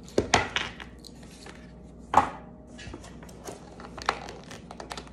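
Hard plastic clicks and knocks from a phone case and its packaging being handled, with light rustling; the loudest knock comes about two seconds in.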